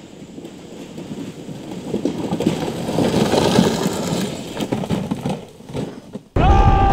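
A Power Wheels ride-on toy rattles and crashes through brush down a wooded slope. It grows louder as it comes near, then it tumbles over. Near the end, a loud steady pitched tone starts abruptly.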